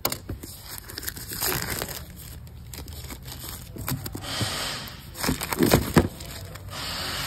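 Plastic shrink-wrap on a cardboard product box crinkling and crackling as the box is handled and unwrapped, in irregular bursts that are loudest about five to six seconds in.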